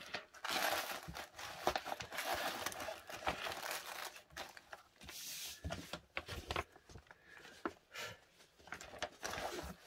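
Plastic bag crinkling and rustling in uneven handfuls, with a few light clicks, as a cross stitch kit is packed up or unpacked.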